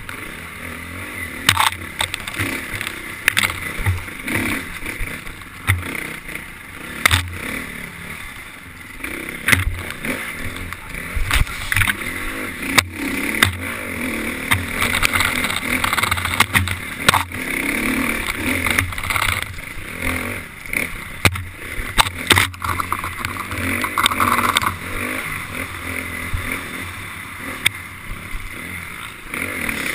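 KTM 350 XC-F dirt bike's four-stroke single-cylinder engine revving up and down under hard riding, with frequent sharp knocks and rattles as the bike bounces over rough trail.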